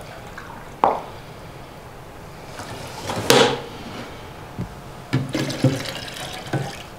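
Red vinegar being poured from a bottle into a glass measuring jug and then into a glass blender jar, with a sharp glass knock just after three seconds and a few more knocks and clunks of the containers near the end.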